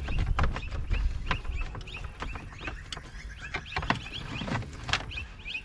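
Cables and plastic connectors being handled and fed down behind a car dashboard: a run of irregular plastic clicks, knocks and rattles with some rustling.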